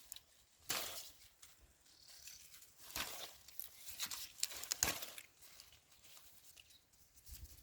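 Leaves and stems of cowpea plants rustling as they are pushed through by hand, in several short, separate bursts.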